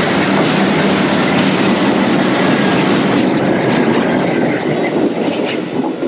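A train running on the rails: loud, steady rattle and rumble of wheels on track with a low hum underneath.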